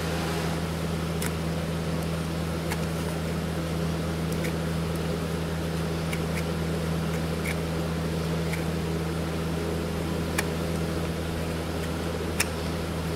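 Steady low machine hum, with scattered sharp clicks as a hoof knife pares away loose hoof wall.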